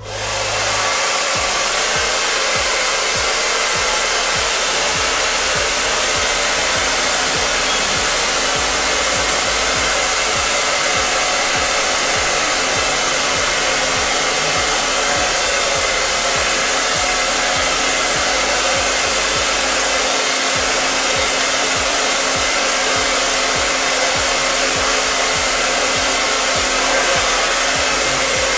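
Handheld hair dryer switched on right at the start, then blowing steadily at one setting.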